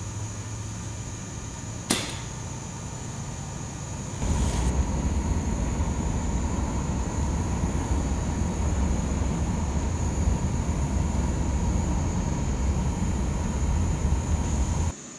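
Steady running noise of shop machinery with a faint high whine and one sharp click about two seconds in. About four seconds in, a louder, deeper running noise starts and holds until just before the end, where it cuts off suddenly.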